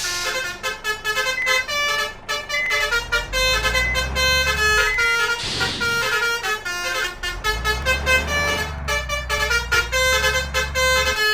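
Basuri multi-tone 'telolet' horn playing a quick melody of short stepping notes. A vehicle engine rumbles low beneath it for stretches.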